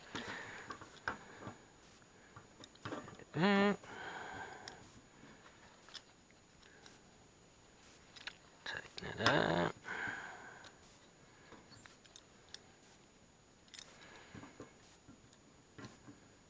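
Scattered faint clicks and small knocks of hands and tools working a corroded wire connection loose from an oven lamp fixture. Two short vocal sounds come through, one a few seconds in and a louder one about halfway.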